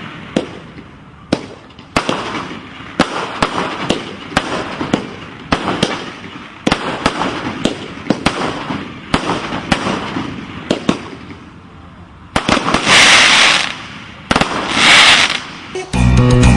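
Fireworks going off: a string of sharp bangs, about one or two a second, each trailing off in a crackle. Two longer, loud crackling hisses come near the end.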